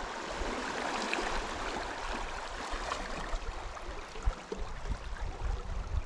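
Steady rushing hiss of turbulent aqueduct water churning and swirling in boils below a concrete flow structure.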